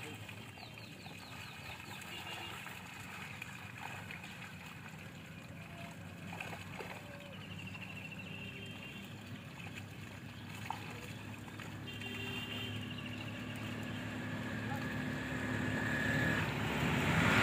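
A low, steady engine hum that grows louder over the last few seconds.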